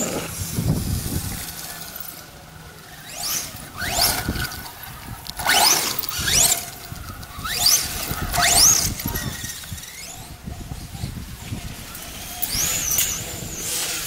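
The brushless motor of an RC stadium truck on a 6S LiPo whines at a high pitch, rising quickly each time the truck accelerates, in about six sharp bursts through the middle. Near the end a wavering high whine comes back.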